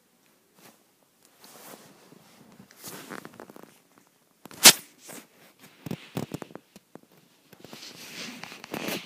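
Rustling and handling noise from bedding fabric and the camera being moved, in scattered short scrapes and clicks, with one sharp loud click about halfway through and a longer stretch of rustling near the end.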